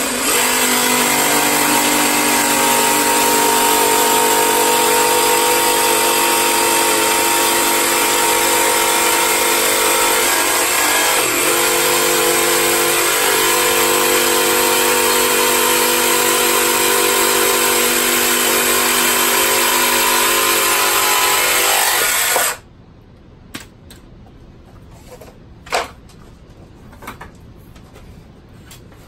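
Jigsaw cutting lengthwise through PVC pipe, running steadily for about 22 seconds with a brief dip about halfway through, then stopping suddenly. A few light knocks follow as the saw and pipe are set down.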